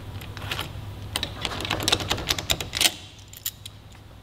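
Rapid, irregular clicking and clatter of hand tools working a motorcycle's handlebar lever guard loose, dense for the first three seconds and then only a few scattered clicks.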